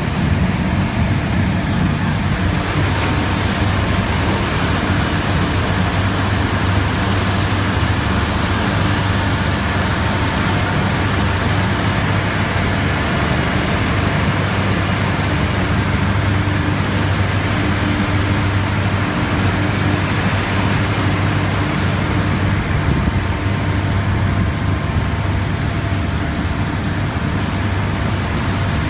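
Textile waste recycling machine running steadily: an even, loud mechanical rushing noise with a low steady hum underneath.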